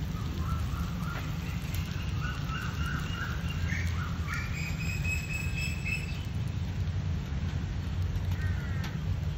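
A bird calling: a run of short chirping notes, then a longer whistled note about five seconds in, over a steady low rumble.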